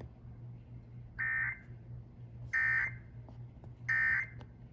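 Emergency Alert System end-of-message data bursts: three short identical bursts of SAME digital tones, about a second and a half apart. They signal the end of the Required Weekly Test message.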